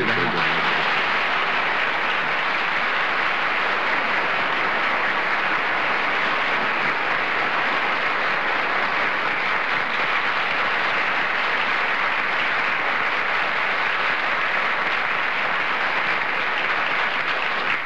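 Studio audience applauding in one even, unbroken round of clapping.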